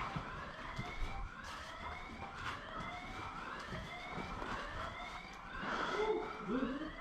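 An electronic siren sounding a repeated rising whoop, about one sweep a second.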